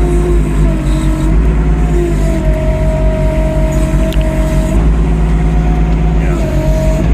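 Typhon Flex 18 mini excavator's engine running steady under load, with a hydraulic whine that shifts pitch and glides up and down as the boom and thumb work to grip and lift a large stump.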